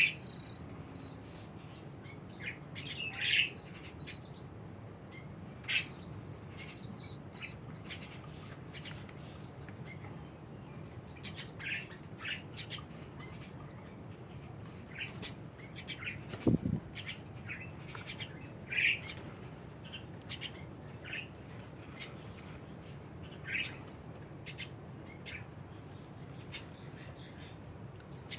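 Birds chirping: short, scattered chirps with no set rhythm, over a faint high ticking, and a single soft thump about two-thirds of the way through.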